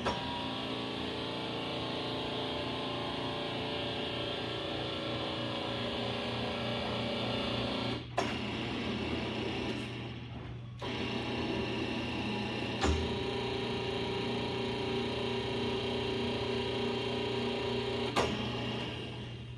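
Ooya RE2-1300A radial drill press running under power, a steady mechanical hum with a gear whine. Its tone changes three times, each change starting with a sharp click, and the sound dips briefly about ten seconds in.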